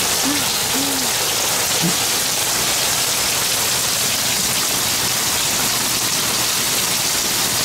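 Heavy rain pouring down steadily in a downpour.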